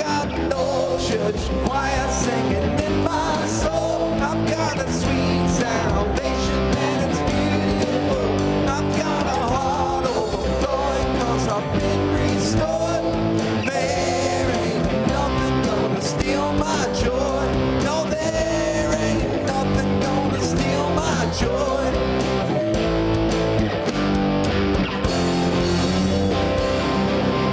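A live church worship band playing an upbeat gospel-rock song, with guitar, drums and singing, at a steady loud level throughout.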